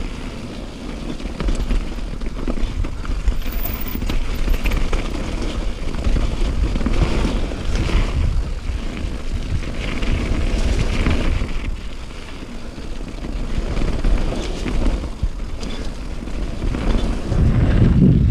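Wind rushing over the microphone of a moving vehicle, over a low, steady running noise that swells and dips.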